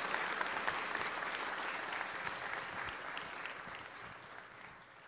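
Audience applauding, the clapping fading away steadily over the few seconds.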